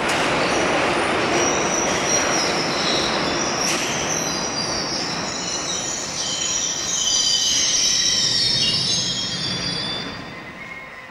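London Underground tube train running into the platform, its wheels and brakes squealing high and wavering over the rumble of the train. The sound dies away near the end as the train comes to a stop.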